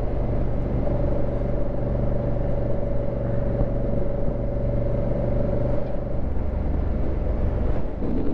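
Honda Africa Twin CRF1000L's parallel-twin engine running at a steady pace under way, with a steady whine held through the middle of the clip.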